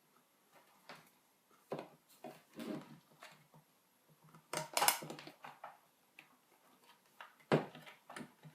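Scattered clicks and knocks of a plastic external hard-drive enclosure and its cables being handled and set upright on a desk, loudest about halfway through and again near the end.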